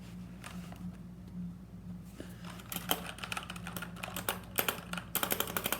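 Keys of an LED mechanical keyboard being pressed: a few scattered faint clicks, then from about two seconds in a fast run of sharp keystrokes, densest near the end. The switches sound like Cherry MX Blue clicky switches.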